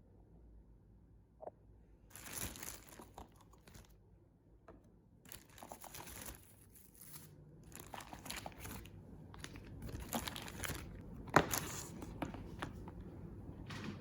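Irregular rustling and crinkling of something being handled, in repeated bursts, with a sharp click a little past the middle.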